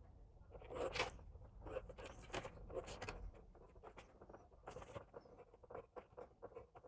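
Faint scratching of a pencil ruling short lines on paper against a plastic set square. The strokes come in a quick run for the first few seconds, then a few light ticks as the square is shifted.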